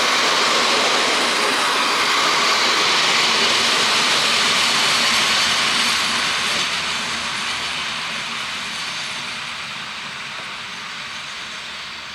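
Passenger train hauled by a GM diesel locomotive moving through the station. A broad rumble and hiss of wheels on rails holds steady, then fades gradually from about six seconds in as the train moves away.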